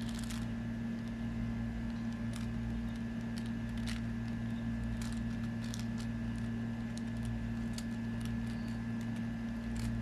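Faint, irregular clicks of a 4x4 Rubik's cube's layers being turned by hand, over a steady electrical hum.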